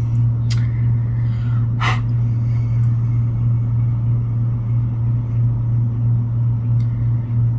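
A steady low hum with rumble underneath, with two short clicks in the first two seconds.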